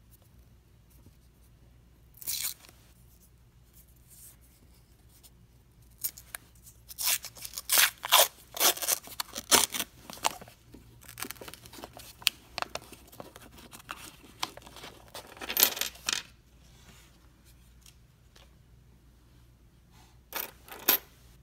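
Paper coin wrapper being torn off a roll of pennies: a short rip about two seconds in, then a long run of ripping and crinkling paper, and two brief noises near the end.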